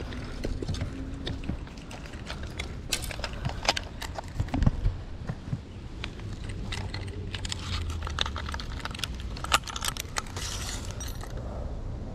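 Irregular light clicks and rattles of hands handling a caught bluegill and measuring it on a ruler, over a low steady rumble.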